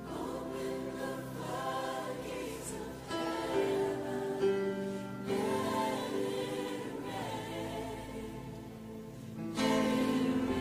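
Live contemporary Christian worship music: a choir of singers holding long notes over piano and band.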